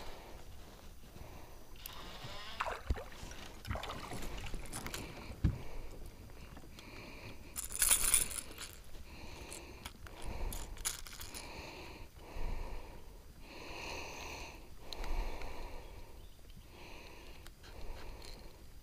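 A bass being brought into a boat and unhooked by hand from a crankbait: scattered scrapes and knocks of handling, the loudest burst about eight seconds in.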